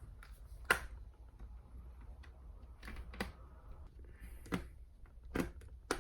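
Small sharp clicks and taps at irregular intervals, about six, the loudest just under a second in: screws being handled and a small screwdriver working them back into a plastic laptop case.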